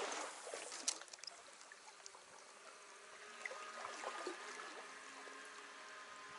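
Shallow stream water trickling, with a couple of faint clicks about a second in. From about halfway there is a faint steady whir of a spinning reel retrieving line.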